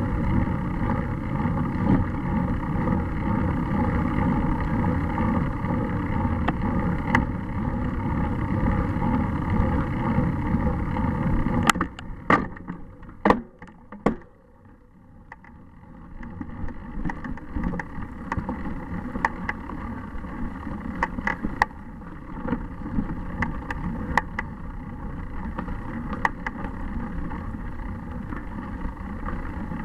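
Wind and road rumble on a bicycle-mounted camera's microphone as the bike rolls uphill. About twelve seconds in, a few sharp clicks come and the rumble drops away almost to quiet. It then returns, softer, with scattered clicks and rattles over the rough dirt track.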